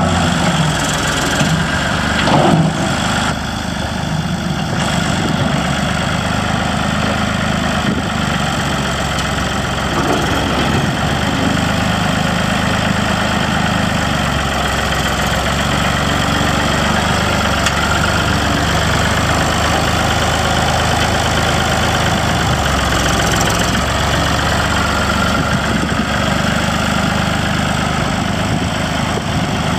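Massey Ferguson MF20 tractor's three-cylinder diesel engine running steadily, briefly louder about two and a half seconds in.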